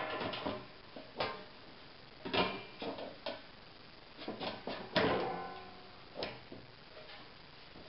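Clicks and knocks of a Mega Chef air fryer's basket and handle being handled and seated in its drawer: about half a dozen separate knocks, the loudest about five seconds in with a brief ring.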